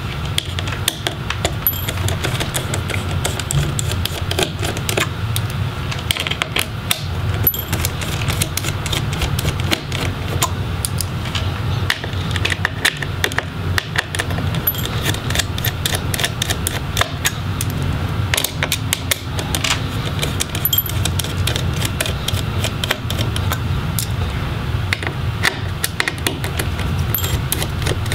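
Small Phillips screwdriver turning out the laptop's heatsink screws, with many irregular light metallic clicks and ticks as the bit engages and turns the screws against the metal heatsink. A steady low hum runs underneath.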